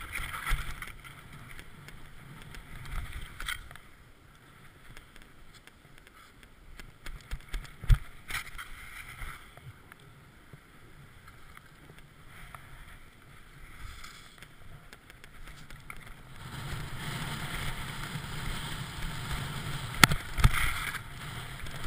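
Riding fast down a snowy ski trail: the hiss and scrape of the rider's edges over packed, choppy snow, with rushing air on the helmet-mounted camera. A sharp knock comes about eight seconds in, and the sliding noise grows louder and rougher about two-thirds of the way through, with two more knocks near the end.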